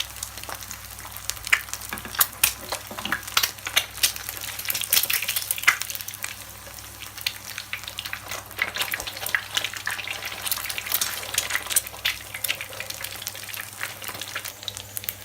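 An egg frying in hot vegetable oil in a pan: steady sizzling with many irregular crackling pops.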